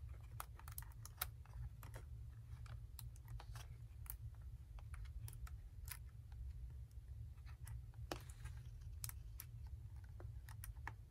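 Faint, irregular small plastic clicks and taps of an HP Pavilion dv5 laptop keyboard being handled and fitted back into its place in the case, over a low steady hum.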